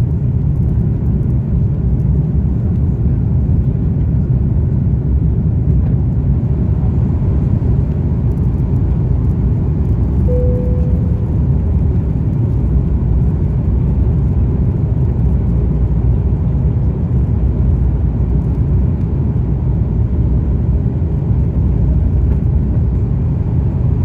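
Airliner jet engines at takeoff thrust, a steady loud rumble heard from inside the cabin as the plane leaves the runway and climbs. A brief single tone sounds about ten seconds in.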